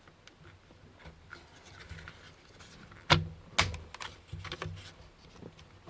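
Light clicks and taps of plastic parts being handled while a steering-column clockspring is fitted, with two sharper clicks about half a second apart just past the middle.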